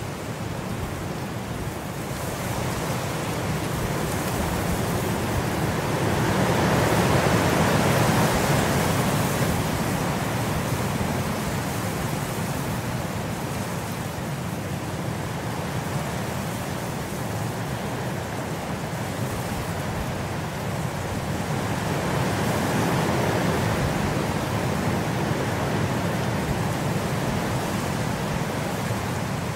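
Steady rain sound, an even hiss with no distinct drops or clicks, swelling louder twice, once about a quarter of the way in and again about three quarters of the way in.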